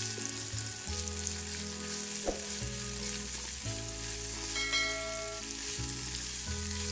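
Strips of dried tofu sizzling in hot oil in a nonstick wok, stir-fried and turned with a silicone spatula.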